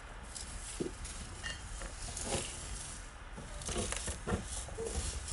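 A three-banded armadillo moving about in dry hay: irregular rustling, scratching and light taps as it pushes through the straw and noses a rubber ball, over a low steady hum.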